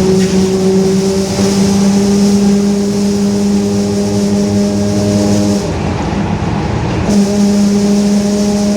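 Mercedes-Benz OF-1721 bus running along, with a steady droning whine from its rear differential, the growl the title points to. The whine drops out for about a second and a half just past the middle, then comes back.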